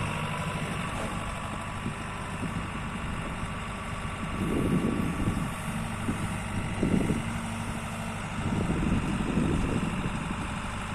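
Diesel engine of a JCB JS130 tracked excavator running steadily at idle. It swells louder three times: about halfway through, briefly a second or two later, and again near the end.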